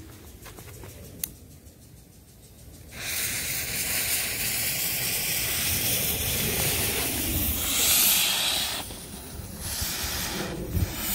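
Lit smoke bombs and small ground fireworks hissing as they burn. The hiss sets in about three seconds in after a single click, swells to its loudest a few seconds later, then dips briefly and comes back near the end.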